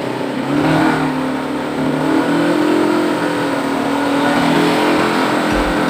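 ATV engine running, its pitch rising and falling as the throttle changes.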